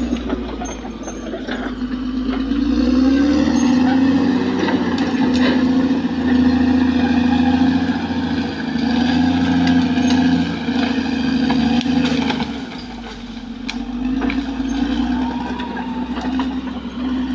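Caterpillar D6R XL bulldozer's diesel engine working hard, with a strong steady drone and a short rise in pitch about three seconds in. It eases off about two-thirds of the way through. Scattered clanks and clicks run throughout.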